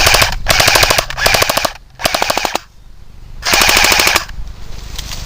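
Airsoft rifle firing on full auto in several short bursts of rapid shots, with brief pauses between them.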